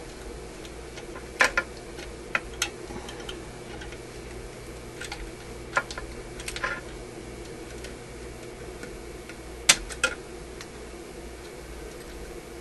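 Scattered light clicks and taps of hands and a small tool working among the wires and components inside a vacuum-tube radio chassis, about eight in all, the sharpest about ten seconds in, over a steady hum.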